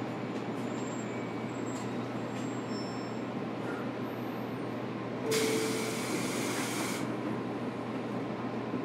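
Steady interior noise of a JR Kyushu 813 series electric train car, with a burst of compressed-air hiss about five seconds in that lasts under two seconds.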